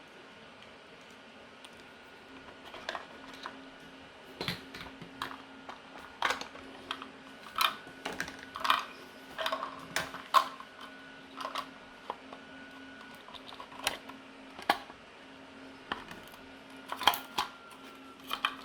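Irregular clicks and taps of the small plastic parts and wiring of a toy bubble machine being handled and fitted together, over a faint steady hum.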